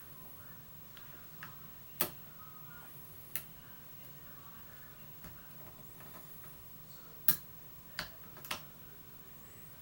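Lock picking: small sharp metallic clicks and ticks as a hook pick works the pins of a pin-tumbler challenge lock under tension. About eight irregularly spaced clicks, the loudest about two seconds in and again past seven seconds, over a faint steady hum.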